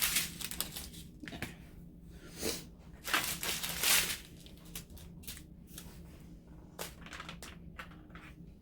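Plastic bags crinkling and rustling as they are handled, with scattered small clicks; the loudest rustling comes about three to four seconds in.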